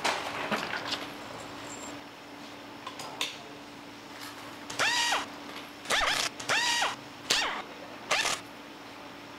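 Pneumatic screwdriver driving the side-cover bolts into an engine's crankcase: a run of about five short whirring bursts in the second half, each rising and falling in pitch as the air motor spins up and stops. Earlier, a few light metal clicks as bolts are handled.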